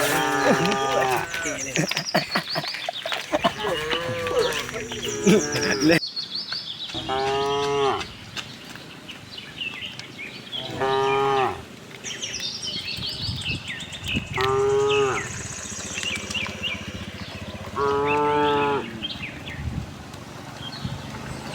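Cows mooing: drawn-out calls of about a second each, coming every three to four seconds, with small birds chirping in the background.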